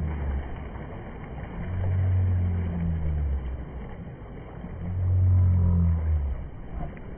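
Fast river water rushing steadily around an inflatable whitewater raft, with two loud low rumbles swelling and fading about three seconds apart.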